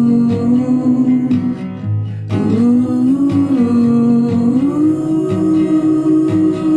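Indie folk music: plucked acoustic guitar under a held, wordless melody line that steps and glides between long notes, with a brief break about two seconds in.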